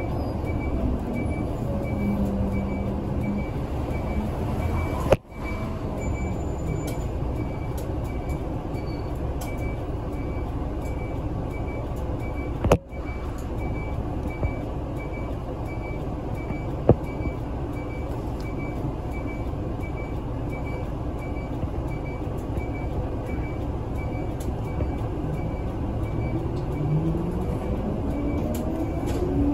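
City bus engine and cabin noise as the bus creeps along in slow traffic, with a high electronic beep repeating evenly throughout. Near the end the engine speeds up, rising in pitch as the bus pulls away.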